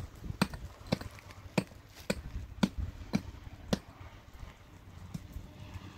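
Short-handled pick striking into a bank of packed gravel and earth, digging out a hole: sharp knocks about two a second, growing weaker after about four seconds.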